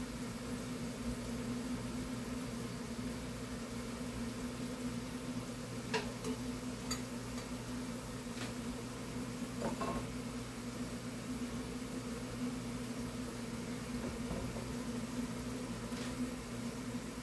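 Steady low hum of a kitchen fan or appliance motor, with a few light clicks of a utensil against the pan scattered through.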